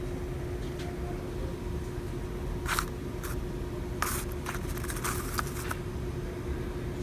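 Pickup truck engine idling just after a cold start, a steady low rumble with a constant hum over it. A few short clicks and scrapes of handling come in the middle.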